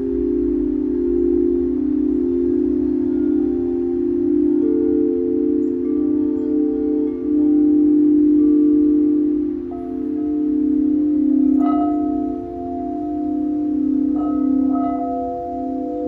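Crystal singing bowls sounding several overlapping sustained tones that waver gently as they beat against one another. Higher bowls join partway through, and in the second half a few mallet strikes ring out and sustain.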